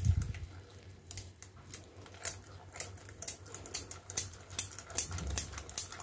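Wire whisk beating a thick flour-and-milk batter in a glass bowl, its wires clicking against the glass about two to three times a second. A low thump comes right at the start.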